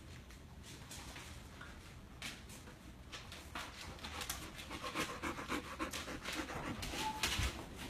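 Diabetic alert dog panting quickly, growing louder about halfway through as it comes up close. The panting is part of its alert to its handler's high blood sugar.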